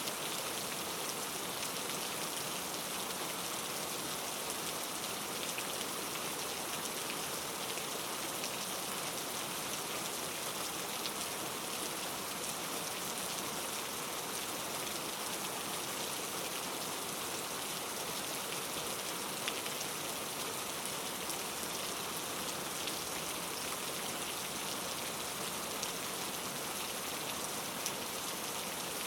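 Steady rain falling, an even hiss of many drops with faint scattered pattering on a surface.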